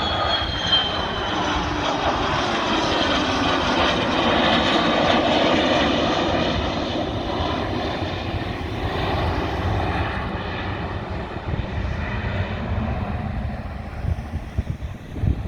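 Gulfstream III business jet's two Rolls-Royce Spey turbofans at takeoff power going past: a high whine drops in pitch at the start, then the loud roar swells and slowly fades away.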